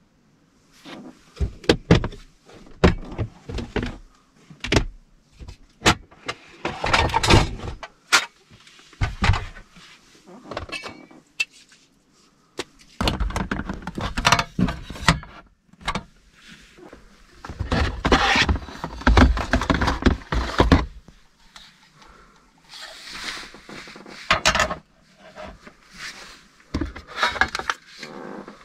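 Camp gear being handled: a run of sharp clicks and knocks, then longer bouts of rustling and clatter, as a folding aluminium table, an Iwatani cassette gas stove with its gas canister, and a plastic storage box are set out.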